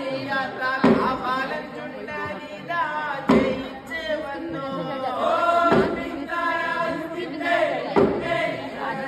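Voices chanting in chorus over recorded music, with a heavy drum hit about every two and a half seconds.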